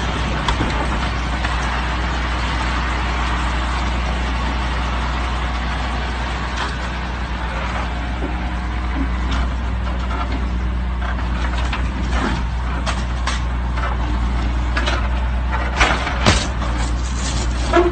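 A heavy diesel engine, most likely the grab crane's, runs steadily with a low drone. A few sharp clicks and knocks come toward the end, as the claw holds the Mercedes G-Class.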